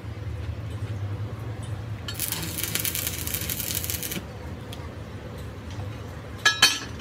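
Stick (arc) welding on a steel axle-housing part: the arc crackles and hisses for about two seconds as a short tack weld is laid, over a low steady hum. Near the end come two sharp metallic knocks in quick succession, ringing briefly.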